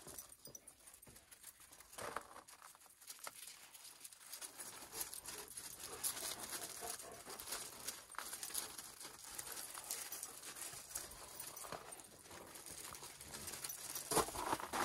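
Dogs' paws and shoes crunching and scuffing on loose gravel in irregular light steps.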